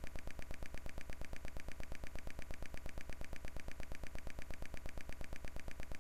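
Steady electrical buzz on the soundtrack, pulsing evenly about ten times a second across all pitches, like signal interference or hum with no program audio.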